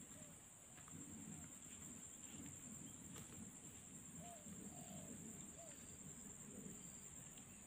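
Faint outdoor ambience: a steady high insect drone, with a few short soft bird calls about four to five seconds in.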